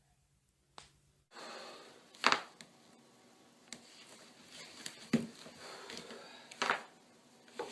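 Spinal joints cracking under neck and back adjustments: several sharp cracks at irregular intervals, the loudest about two seconds in and again about five seconds in, over a steady room hiss.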